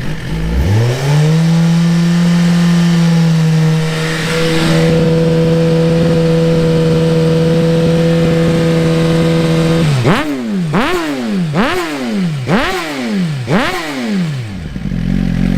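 Suzuki GSX-R 1000 inline-four engine through a Yoshimura slip-on exhaust, revving: it climbs and holds a steady high rev for about eight seconds, then is blipped five times in quick succession, each rev rising and falling, and drops back to idle near the end. A slight rattle in the exhaust is put down by the owner to the factory exhaust valve, a known problem on these Suzukis.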